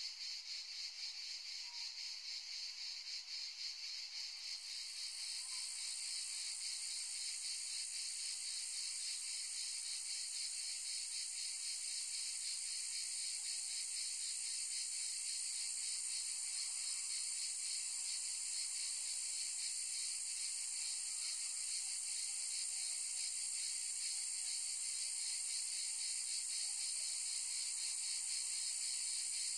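Insects buzzing steadily in a high-pitched chorus with a fast pulsing texture, growing louder about five seconds in.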